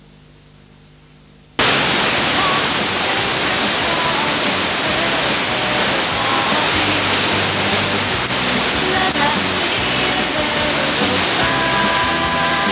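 A low steady hum, then about a second and a half in a loud, even static hiss cuts in suddenly, with music faintly audible beneath it.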